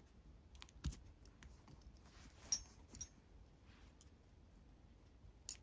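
Faint handling sounds of nylon paracord being threaded through a metal belt buckle: a few light clicks and taps scattered through, the sharpest about two and a half seconds in.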